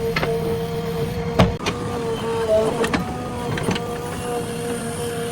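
JCB 3DX backhoe loader's diesel engine running steadily under a hydraulic whine, with a few sharp metallic knocks from the working machine.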